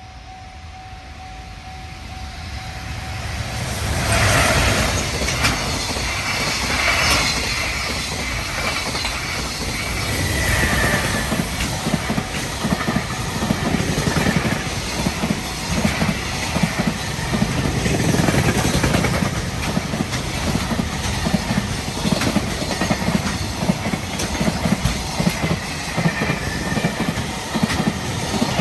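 A JR freight train passing at speed. The electric locomotive comes in loud about four seconds in, its traction motor whine falling in pitch as it goes by. A long string of wagons follows, with rhythmic wheel clacks over the rail joints.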